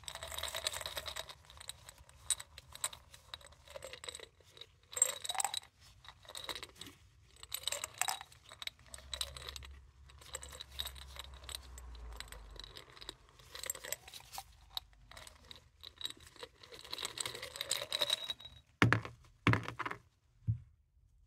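Hard paradichlorobenzene mothball tablets rattling and clinking against a glass jar and against each other as they are shaken and tipped out, in bursts of clatter with short pauses between. A few louder knocks come near the end, then the clatter stops.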